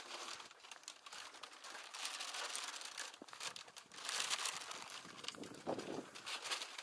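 Faint crinkling and rustling of the paper wrapping on a bundle of metal tubes as it is handled, lifted and carried, with a few light knocks.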